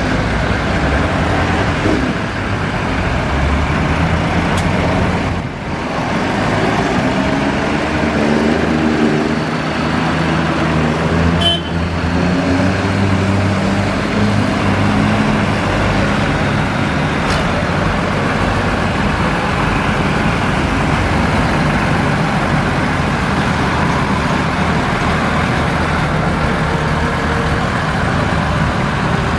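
Large diesel farm tractors (a New Holland, a Deutz-Fahr Agrotron and a Massey Ferguson 8280) driving past one after another. Their engines run steadily, and the engine notes shift in pitch as each one pulls away.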